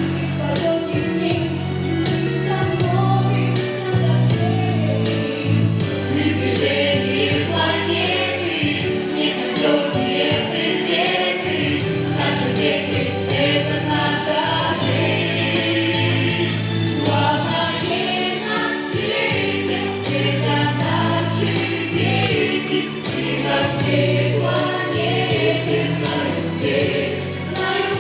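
A vocal ensemble singing a song together in chorus over instrumental accompaniment with a steady beat.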